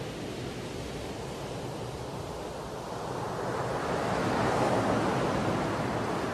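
Surf washing onto a sandy beach, mixed with wind on the microphone; a rushing swell builds about three seconds in, peaks near five seconds and eases off.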